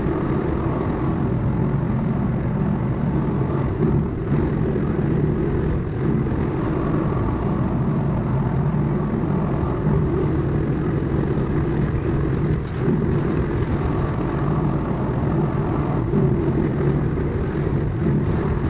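Diesel engine of a heavy earthmoving machine running steadily, with a few faint ticks about four to six seconds in.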